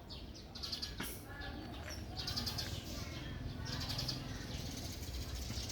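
Animals giving repeated short, high-pitched chirping calls, a burst every second or so, over a low rumble.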